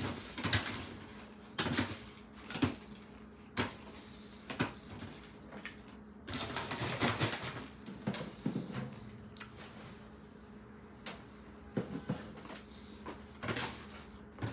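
Dried pretzels dropped one at a time into a foil-lined paper bag, a light crinkle and tap about once a second, with a longer stretch of rustling about six seconds in.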